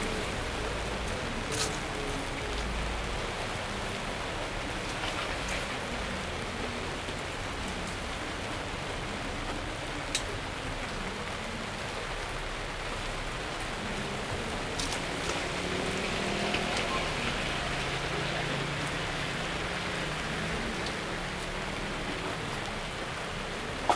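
Steady heavy rain falling on a tent stall's roof, with a few light clicks.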